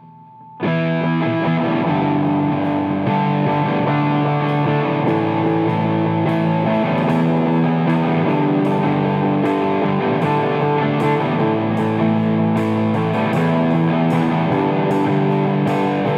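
Distorted electric guitar playing a loud rock part through an amplifier, coming in suddenly about half a second in.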